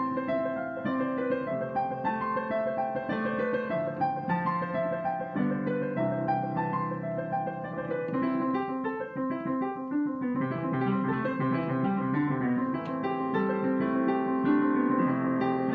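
Solo piano playing a steady stream of quick notes over a lower accompaniment.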